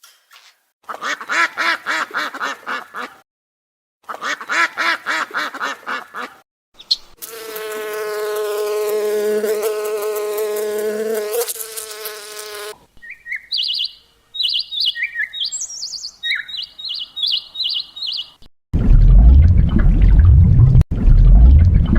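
A run of different animal sounds one after another: two stretches of rapid buzzing, a long pitched call of about five seconds, a string of short high chirps, then loud low rumbling in the last few seconds.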